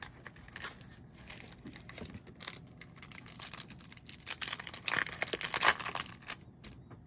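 Wrapper of a baseball-card pack being torn open and crinkled: a run of crackly tearing and rustling starts about two and a half seconds in, is loudest a little before the end, then stops.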